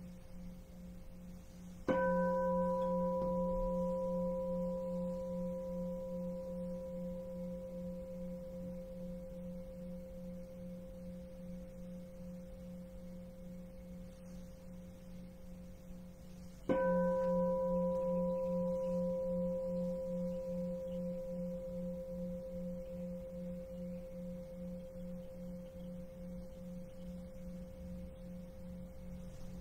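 Large Buddhist bowl bell (keisu) struck twice, about fifteen seconds apart. Each stroke rings on and fades slowly, a clear ring over a low hum that pulses evenly.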